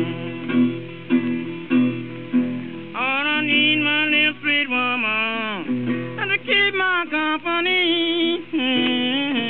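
Blues music on guitar, with notes bending and sliding in pitch from about three seconds in.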